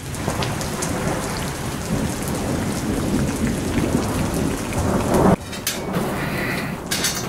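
Steady rain with rolling thunder, growing louder before cutting off abruptly about five seconds in. After the cut, a few light clinks of forks on plates.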